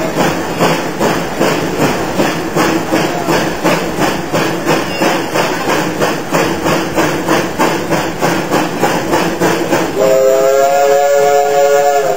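Narrow-gauge steam locomotive working ahead under steam, its exhaust chuffing in a steady, even rhythm of about three beats a second. About ten seconds in, its steam whistle sounds a steady chord for roughly two seconds.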